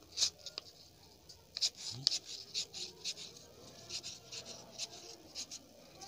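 Stiff paper rustling in a string of short, irregular crackles as the wings of an origami flapping bird are worked by pulling its tail.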